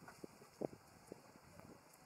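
Faint splashing of shallow muddy water as macaques wrestle and swim in it, with a few short sharp splashes, the loudest about two-thirds of a second in.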